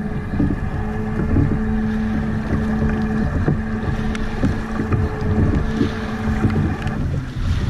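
Small boat's motor running steadily under way, with a dense low rumble and irregular knocks of the hull on the water; the motor's steady tone stops near the end.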